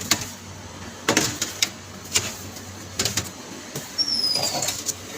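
Sharp clicks and knocks of sandwich-making handling at a Subway counter, with a brief high squeak that falls slightly in pitch about four seconds in.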